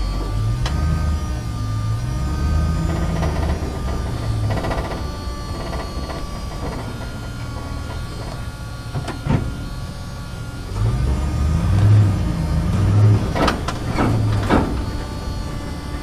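A truck driving through a parking garage: a low engine rumble that swells and eases, with a faint steady whine above it. There is a sharp knock about halfway through and a quick run of knocks near the end.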